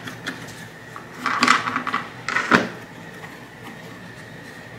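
Handling noise of thin wood pieces being moved and set in place: two brief scraping knocks, about a second apart, with a small click just before.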